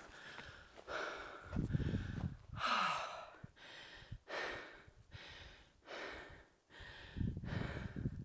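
A person breathing hard and fast, about one breath a second: out of breath. There are a few low rumbles on the microphone about a second and a half in and again near the end.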